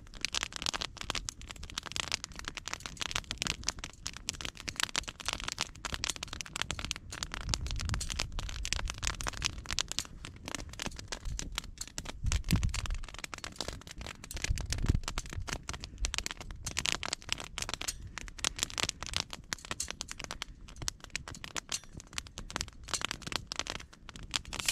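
Bitty Big Q folding metal camp grill clicking and rattling in the hands as its hinged frame and rod grate are unfolded. Two dull thumps come about halfway through.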